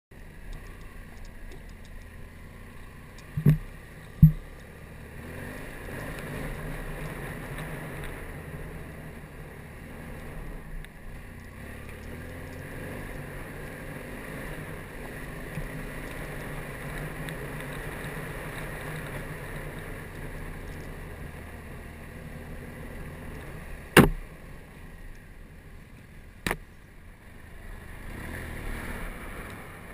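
BMW F800GS parallel-twin engine running at low, fairly steady revs on a rutted dirt forest track. Four sharp knocks cut through it, two about three and four seconds in and two more in the last third.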